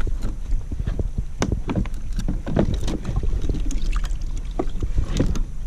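Irregular knocks and clatter of gear handled on a plastic pedal kayak while a hooked redfish is tangled in the pedal drive, over a low rumble of wind on the microphone.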